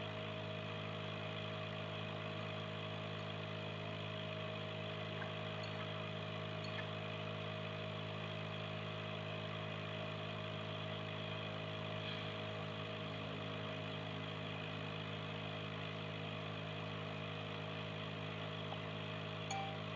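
Aquarium air pump humming steadily, with air bubbles rising from the air stone and bursting at the surface.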